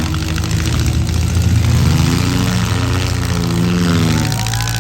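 Four-cylinder demolition derby cars' engines revving, their pitch rising and falling several times over a steady low rumble.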